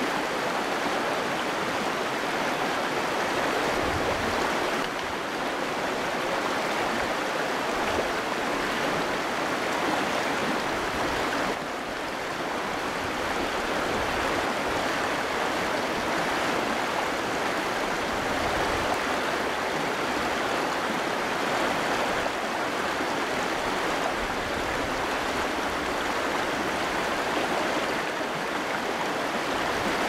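Shallow, rocky river running fast over stones in riffles: a steady rush of water.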